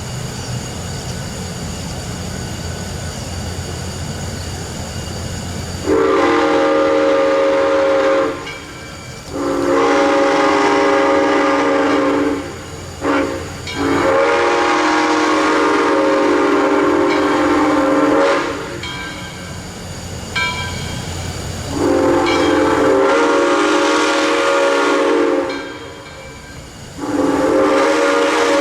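Steam locomotive's chime whistle, several notes sounding together, blowing the grade-crossing signal: two long blasts, a short toot and a long blast, then two more long blasts near the end. Before the first blast comes about six seconds of the train's steady low rumble.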